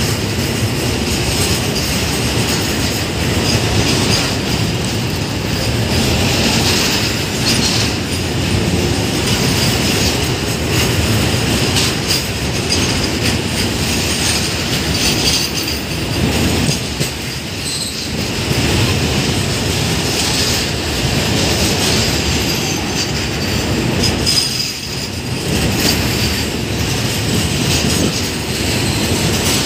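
Enclosed automobile-carrier freight wagons rolling past close by: a loud, steady rumble of steel wheels on the rails with a high wheel squeal running through it, briefly easing twice.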